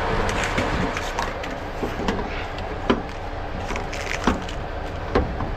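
Scattered metallic knocks and clanks as hose lines are unhooked from a tank trailer's couplings, the sharpest about three seconds in and two more near the end, over a steady low rumble.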